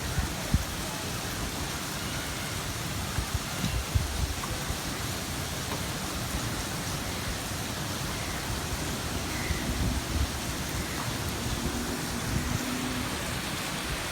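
Steady rain falling, an even hiss, with scattered short low thuds and a faint low hum for a few seconds in the later part.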